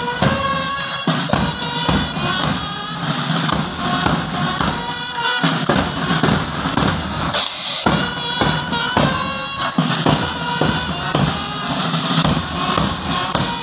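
School marching band playing while on the move: bass and snare drums beat time under a melody played in phrases on wind instruments.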